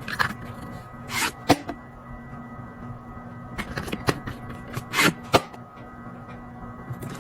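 Items being handled and set down while a mini fridge is restocked: scattered clicks, knocks and short rustles, about nine in all, over a steady low hum.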